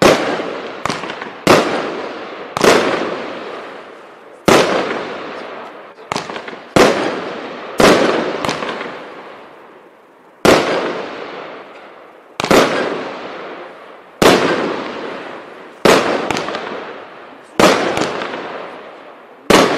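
Jonathans Fireworks 'Showtime' 284-shot compound cake firing: a string of sharp shell bursts, one every one to two seconds, each fading away over a second or so. There is a longer pause about halfway through.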